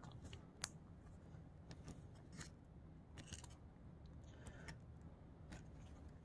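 Faint crinkling of a ration jam pouch being squeezed out onto a cracker, with a few small scattered clicks and rustles.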